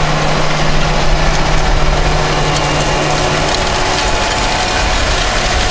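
John Deere 8370R tractor's diesel engine running under load as it pulls a Horsch Pronto 9DC seed drill through dry soil, with the drill's discs, wheels and frame clattering and rattling. The engine's steady hum drops away about three and a half seconds in, while the rattling goes on.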